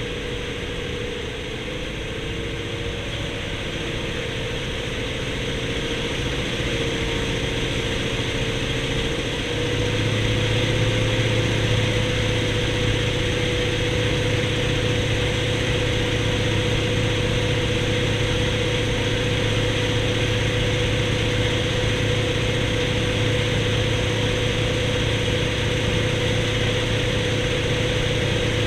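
An-2 biplane's nine-cylinder radial engine running steadily. Its note wavers at first, then about ten seconds in it settles and grows a little louder and deeper, and holds there.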